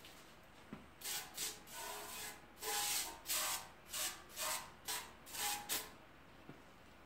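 Aerosol degreaser sprayed into a steel oil pan in about ten short hissing bursts, starting about a second in, one of them longer than the rest.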